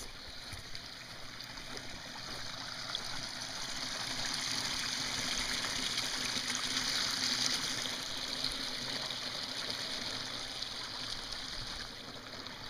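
Shallow stream trickling and running over rocks, a steady rush of water that swells in the middle and eases off near the end.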